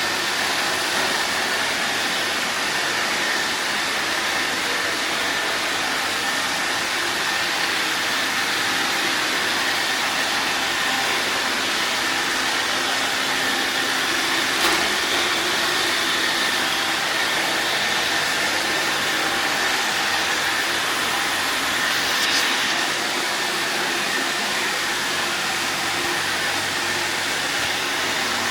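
Robot vacuum cleaner running steadily: an even whooshing hum from its suction motor and brushes with a faint high whine, and one sharp click about halfway through.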